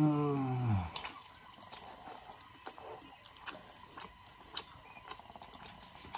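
A brief falling vocal sound at the start, then faint scattered clicks and wet smacks of people eating fried noodles.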